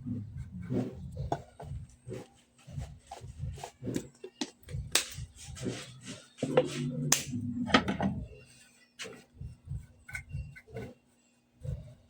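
Irregular clicks, knocks and rubbing of hard objects being handled, with a busier stretch of knocking and scraping a little past the middle.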